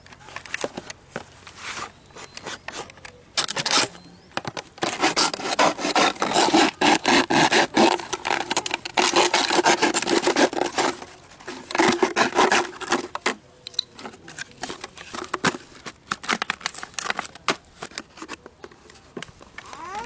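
Rapid, rough scraping, in a dense run from about five to eleven seconds in and a shorter run about a second later, with scattered lighter scrapes around them.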